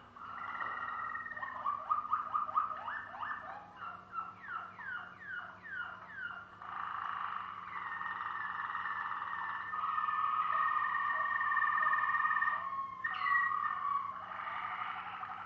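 Malinois Waterslager canary singing: a run of quick downward-sliding notes, then long, steady rolling trills with a brief break near the end.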